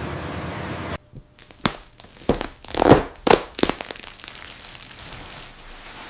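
A loud noise cuts off abruptly about a second in, then a quick run of sharp knocks and cracks, about eight in two seconds, fading to a low background hiss.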